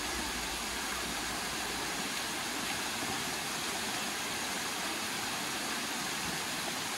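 A steady, even hiss of noise, with little low rumble and no change in level.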